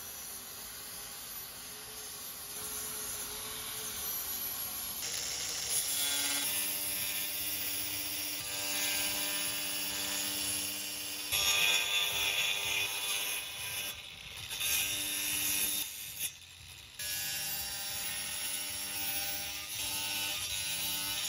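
Bosch angle grinder with a cutting disc slicing kerfs into a pine block, starting a few seconds in as a steady motor whine under a dense cutting hiss. It stops briefly twice between cuts.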